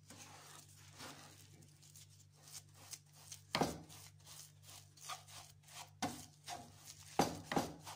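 A utensil scraping, pushing and pressing thick semolina halwa dough around a nonstick frying pan, with a few sharper knocks against the pan about three and a half seconds in and twice near the end. A low steady hum runs underneath.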